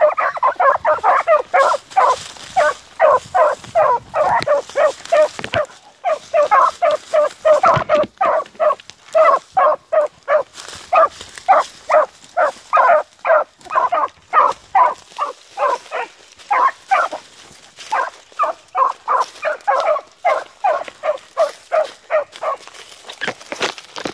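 Young beagle hounds giving tongue, a rapid run of barks at about two to three a second that starts abruptly and breaks off near the end: hounds crying on a rabbit's scent line as they run it.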